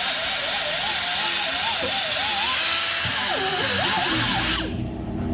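Handheld power tool running against the metal of a wheel spindle, cleaning it, with a loud hiss and a whine that wavers in pitch as the load changes. It cuts off suddenly about four and a half seconds in, leaving a low, rhythmic hum underneath.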